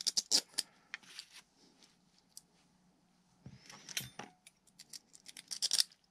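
Small metal hardware clinking as bolts and spacers are handled and fitted onto an electric motor and its mount plate: a cluster of sharp clicks at the start, a brief scrape about four seconds in, and more quick clicks near the end.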